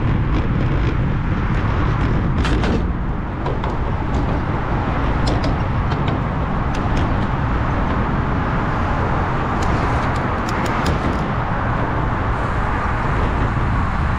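Steady wind rush and low rumble from a Specialized Roubaix SL2 road bike riding at speed, its tyres running over brick pavers and then onto a wooden-plank bridge deck, with a few short sharp clicks scattered through.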